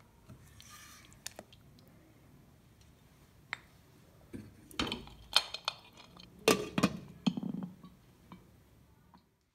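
Silicone spatula faintly stirring thick potato curry in a steel saucepan, then a glass pot lid clinking sharply several times against the pan's rim as it is set in place about halfway through.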